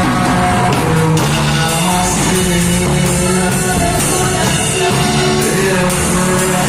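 Live church worship band playing a rock-style worship song, with electric guitar, drums and cymbals, and singing.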